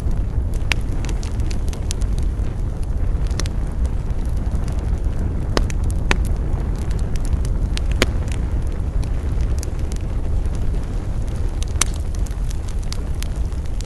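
Campfire burning, with a steady low rumble and scattered sharp crackles and pops of the burning wood, a few of them louder snaps.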